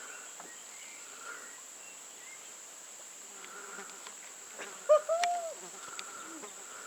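Insects shrilling steadily at one high pitch. About five seconds in, a couple of sharp clicks come with a short tone that rises and falls.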